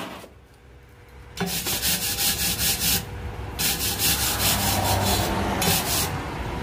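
Hand-held abrasive (sandpaper or similar) rubbed back and forth on steel in quick strokes, about five a second. It starts about a second and a half in and pauses briefly twice, working paint off a galvanised bar.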